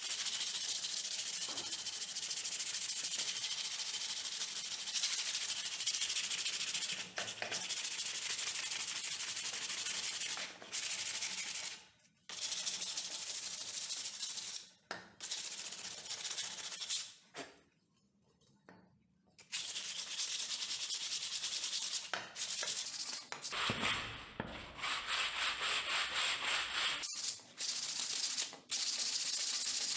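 Sandpaper rubbed back and forth by hand along a wooden axe handle, a steady scratchy hiss broken by a few short pauses.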